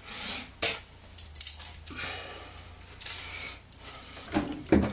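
Light metallic clinks and rattles of hand tools and electrical outlets being handled: needle-nose pliers, a screwdriver and duplex receptacles with metal mounting straps, a few separate clicks spread through, over a faint low hum.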